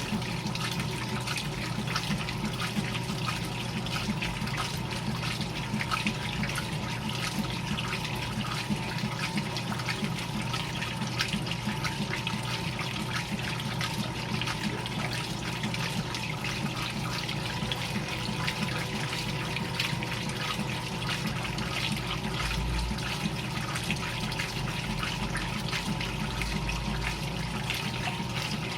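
GE Filter-Flo top-loading washing machine running with water churning and splashing in the tub over a steady motor hum.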